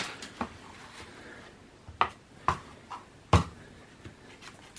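Small plugs and leads being handled and fitted together: a handful of short, sharp clicks and knocks, the loudest about three and a half seconds in.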